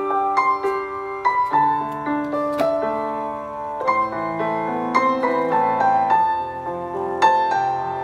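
Background piano music: a melody of struck notes over held lower notes.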